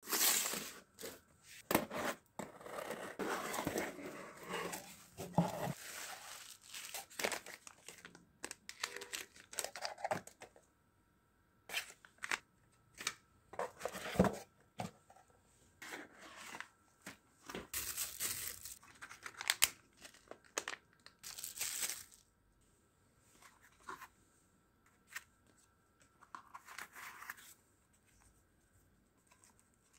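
Cardboard box and packaging being opened by hand: rustling of box flaps with tearing and crinkling of the wrapping around the display board. It comes in irregular bursts, busiest in the first ten seconds and thinning out after about twenty-two seconds.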